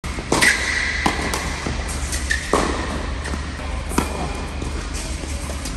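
Tennis rally on an indoor hard court: sharp pops of racket strings hitting the ball and ball bounces, about five in all, with a forehand struck about four seconds in.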